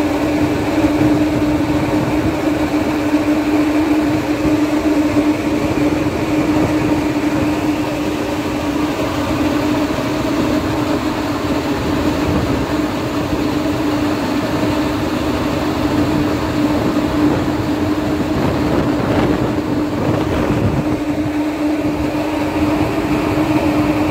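Steady drone of a river ferry's engine heard on board, a constant low hum that does not change.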